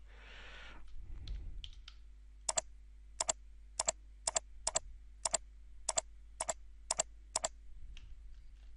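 Computer mouse clicking: about a dozen sharp, separate clicks at roughly two a second, starting a couple of seconds in, as points are picked one after another.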